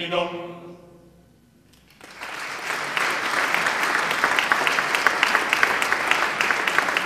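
A male a cappella choir's final chord cutting off and dying away, a second or so of near silence, then audience applause breaking out about two seconds in and carrying on steadily.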